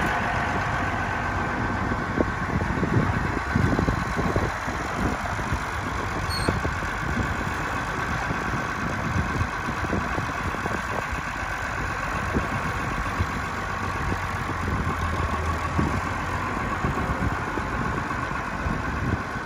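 Cockshutt 1850 tractor's engine running at a steady, low speed as the tractor drives slowly, with a few sharper thumps about three to four seconds in.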